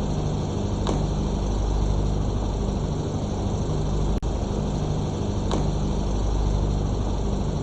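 Lawn mower's small engine running steadily, with a single sharp click about four seconds in.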